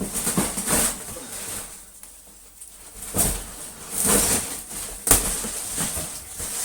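Cardboard packaging and packing material rustling and scraping in several short bursts as a vacuum cleaner is pulled out of its box.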